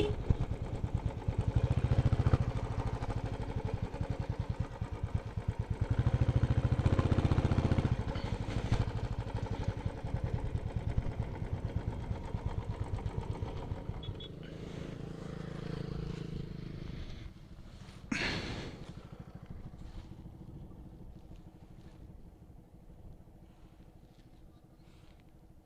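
Motorcycle engine running while riding, with a steady pulsing beat that fades through the second half as the bike slows. A short loud rush of noise comes about 18 seconds in.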